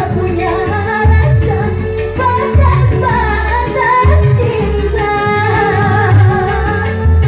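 A woman singing a melody into a microphone over electronic keyboard backing with a heavy, regular bass beat, all played through a PA loudspeaker.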